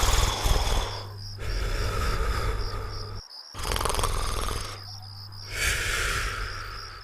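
Cartoon snoring: about four long, rattling snores, one after another. Crickets chirp steadily behind them and can be heard in the gaps.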